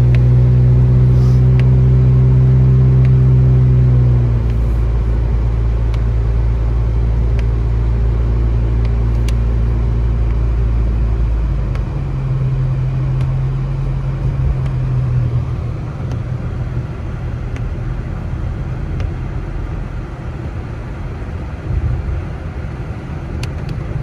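Car engine and road noise heard from inside the cabin while driving. The steady low engine hum changes note about four seconds in and again about twelve seconds in.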